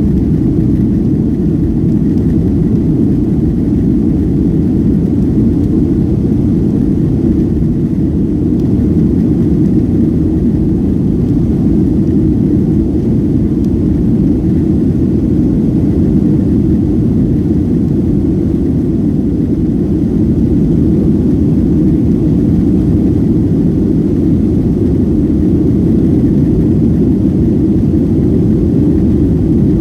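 Boeing 757-200's twin jet engines at takeoff-climb power heard from inside the passenger cabin: a loud, steady, deep noise that holds unchanged during the climb just after lift-off.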